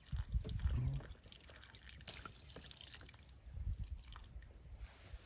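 Water trickling and dripping from the upturned reservoir of a gravity-fed poultry drinker into its base tray, a quick irregular patter of small drips and splashes. A low rumble sounds in the first second.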